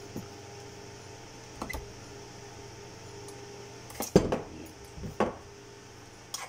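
Plastic knocks and clatter of a syringe pump's casing being turned over and its battery pack pulled out of the compartment, the loudest cluster about four seconds in, over a steady low hum.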